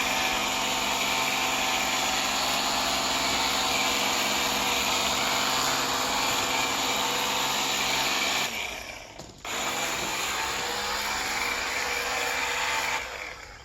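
Ryobi EZClean cordless power cleaner spraying water on its rinse setting: a steady motor tone over a hiss of spray. It cuts out after about eight and a half seconds, starts again about a second later, and stops near the end.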